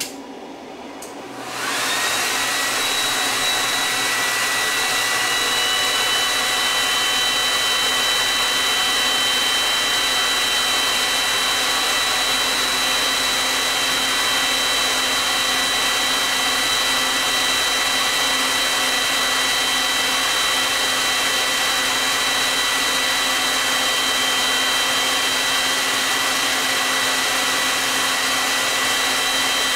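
Heat guns switching on about two seconds in and then running steadily, a loud even rush of blown air with a high whine that rises and settles within a few seconds. They are the load pulling about 370 amps from the battery through two 3000-watt inverters.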